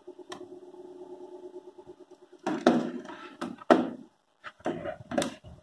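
Router packaging being picked up and handled: a run of short rustles and knocks from about halfway through. Before that, a faint steady hum.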